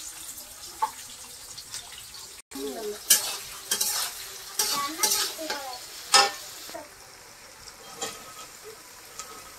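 Food sizzling in hot oil in a kadai while it is stirred. A run of loud, sharp scraping stirs comes in the middle, and the frying settles to a quieter steady sizzle near the end.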